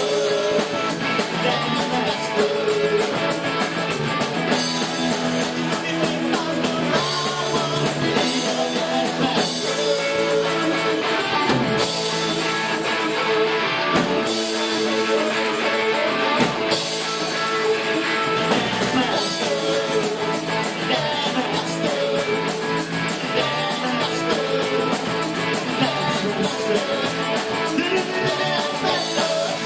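Rock band playing: electric guitar and drum kit with an even run of hi-hat ticks, with singing.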